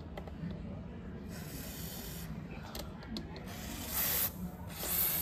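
WD-40 aerosol can spraying through its straw onto a motorcycle exhaust header pipe. There is a fainter, longer hiss about a second in, then two short, louder spray bursts near the end.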